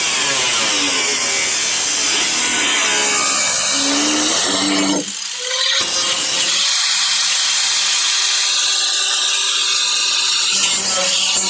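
Electric grinder cutting through the sheet-metal trunk floor pan of a 1957 Chevy 210, a loud steady cut with the motor's pitch wavering under load. It eases off briefly about five seconds in, then cuts on.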